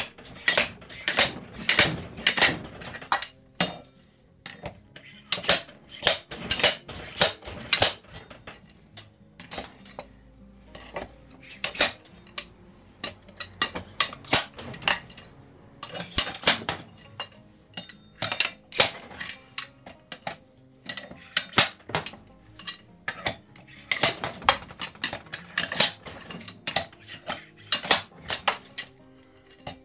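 Sharp metal clinks and knocks from hand tools working a tight sprocket carrier loose from a motorcycle's rear wheel hub. They come in irregular bursts with short pauses between.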